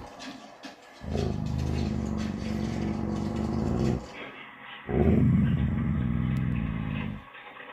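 Doberman growling low at dogs on a television: two long growls of about three and two and a half seconds, each opening with a brief higher edge.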